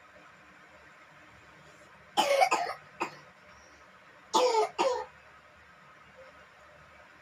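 A person coughing: two short bouts about two seconds apart, each of two or three quick coughs, the first about two seconds in.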